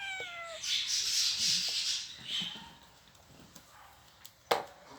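A cat gives one short meow that falls in pitch, followed by about a second of hiss-like noise. A single sharp click comes near the end.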